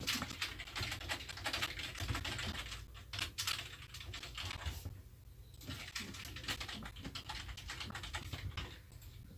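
Rapid typing on a keyboard: runs of quick keystroke clicks, with a short pause about five seconds in.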